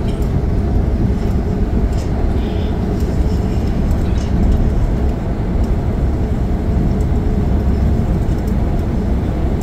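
A coach bus driving at speed on a highway, heard from inside the cabin: a steady low rumble of engine and tyre noise.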